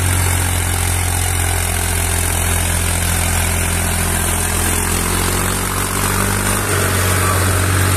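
New Holland tractor's diesel engine running steadily under a heavy load as it hauls two trailers of sugarcane past, a continuous low drone.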